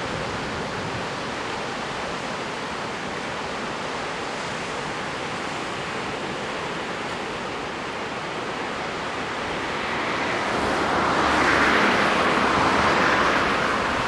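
Ocean surf washing on the beach, a steady rush that swells louder for a few seconds near the end as a wave breaks.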